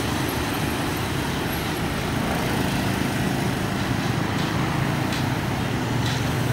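Steady low rumble of road traffic and a heavy vehicle's engine running.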